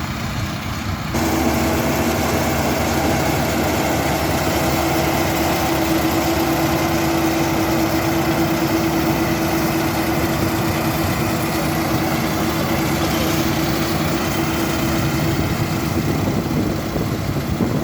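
Osaka half-feed combine harvester's engine and machinery running steadily. About a second in, the sound steps up louder and holds at that level.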